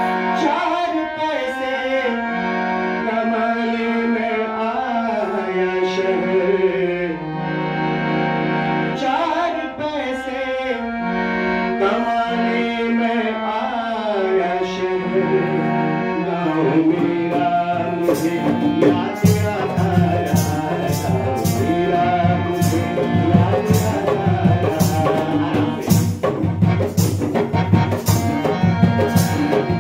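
Live harmonium music with held chords and a wavering melody line. Hand drums join about eighteen seconds in, playing a steady beat.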